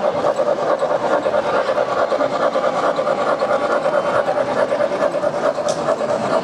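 O-gauge model trains running on three-rail track: a steady running sound of wheels and electric motors with a fast, even clicking.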